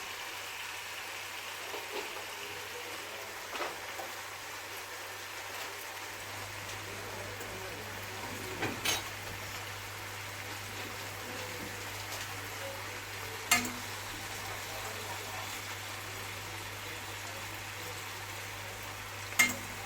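Chicken and onion frying in oil in a pan with a steady sizzle, as the filling cooks with soy sauce and chili. A utensil knocks sharply against the pan three times.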